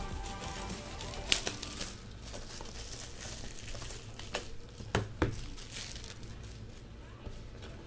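Trading cards and their plastic packaging being handled: crinkling, with a few sharp clicks, one a little over a second in and three in quick succession between about four and five seconds in.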